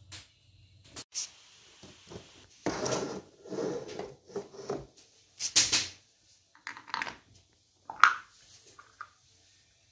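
Irregular knocks, scrapes and clatters of air compressor assembly: a wooden block slid under the steel tank on a concrete floor and a plastic wheel picked up, with the sharpest knocks a little past halfway and about two seconds later.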